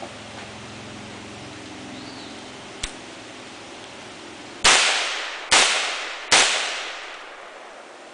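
AR-15 rifle firing three single shots a little under a second apart, each report trailing off in a long echo. A faint click comes a couple of seconds before the first shot.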